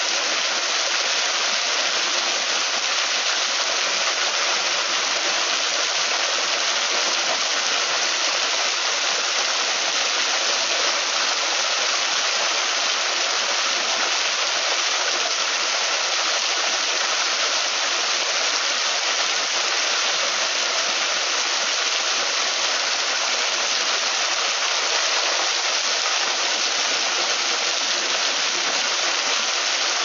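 Garden waterfall: water falling in a thin curtain off a rock ledge and splashing onto rocks and the pool below, a steady, even rush with little deep rumble.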